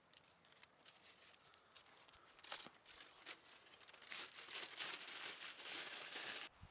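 Crinkling and rustling of something being handled, with scattered sharp crackles, building into a dense rustle over the last couple of seconds that cuts off abruptly.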